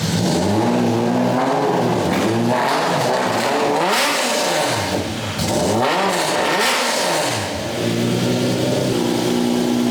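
Race car engine blipped hard twice, rising and dropping back each time, then settling into a steady idle near the end. The engine has been rebuilt after throwing two rods out the side of the block and is running for the first time in about three years.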